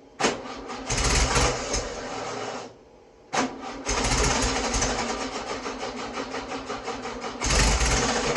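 Freshly rebuilt VW Beetle 1641cc air-cooled flat-four cranking and firing in two short bursts. Each burst is a rapid, even chugging that stops after a few seconds, with a brief pause between them.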